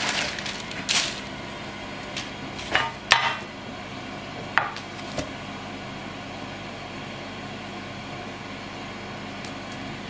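Parchment paper rustling and a handful of light knocks and clicks as a sheet of shortcrust pastry is laid into a metal tart tin on a wooden board and pressed in by hand, the loudest knock about three seconds in. Under it runs a steady low hum.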